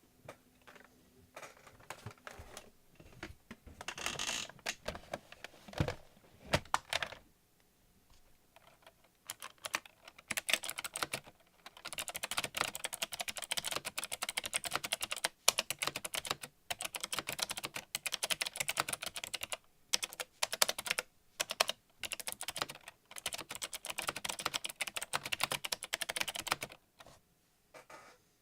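Typing on a mechanical keyboard with clicky switches. Scattered single keystrokes for the first several seconds, then fast continuous typing with short pauses.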